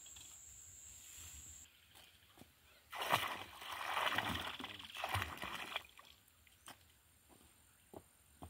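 Milk poured from a metal bucket into a shallow creek, splashing and gurgling into the water for about three seconds, starting about three seconds in.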